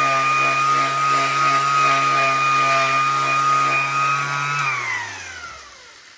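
Electric hand sander running steadily while lightly sanding a hardwood floor, then switched off about four and a half seconds in, its motor whine falling in pitch as it spins down.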